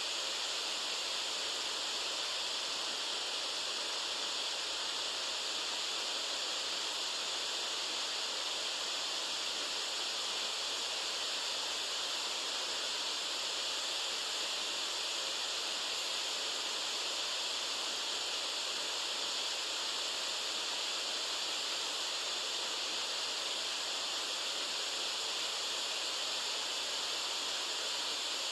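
Steady white noise played as a sleep aid: an even, unbroken hiss, brightest in the upper range with almost no low rumble.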